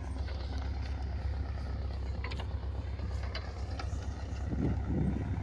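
Rotary snow-blower truck's engine running with a steady low drone as it cuts through deep snow. A few sharp clicks come in the middle, and the rumble swells louder near the end.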